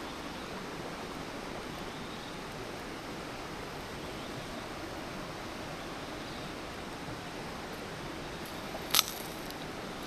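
Wood campfire burning: a steady hiss, with one sharp crackling pop about nine seconds in.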